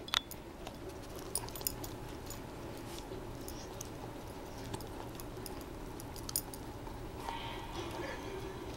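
Saint Bernard puppy biting and chewing a slice of pizza held in a hand: irregular small clicks and smacks of its mouth over a steady low hum. One sharp click at the very start is the loudest sound.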